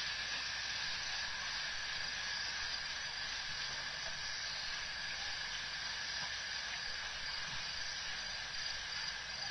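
Steady hiss with a constant high tone running through it, and no distinct events.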